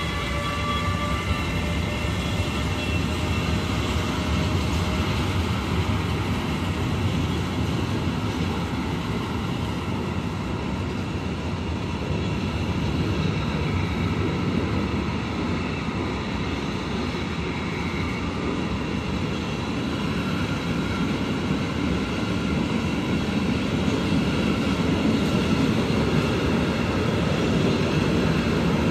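Freight train of empty flat wagons rolling past behind a Siemens Vectron electric locomotive, with a steady rumble of wheels on rail that grows slightly louder near the end. The locomotive's electric whine fades out in the first second or so.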